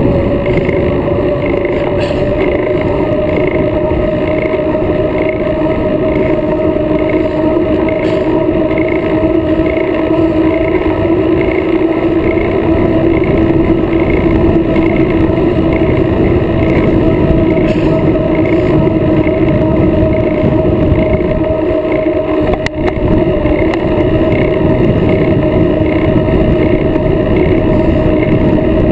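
Wind buffeting the microphone of a camera mounted on a moving road bike, a loud steady rush with a constant hum from the tyres rolling on pavement. A faint regular tick sounds about twice a second.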